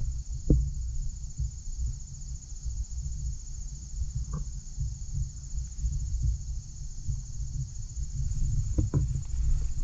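Steady chorus of insects chirring, over an uneven low rumble of wind buffeting the camera's built-in microphone, with a few faint knocks.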